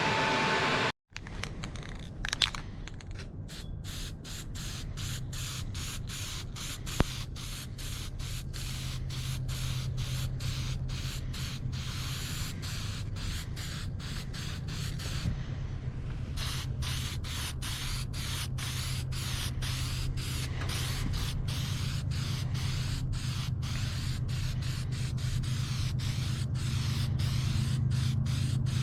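Spray paint hissing steadily onto a steel cart, broken by many brief pauses, about two a second, over a low steady hum.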